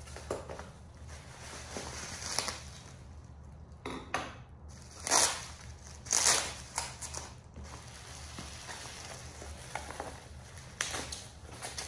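Plastic bubble wrap crinkling and rustling in irregular loud bursts as it is cut with scissors and pulled apart by hand.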